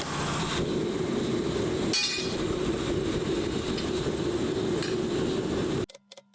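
A steady rushing roar with a ringing clink of metal about two seconds in and a fainter clink later. It cuts off suddenly near the end, leaving a few sharp clicks.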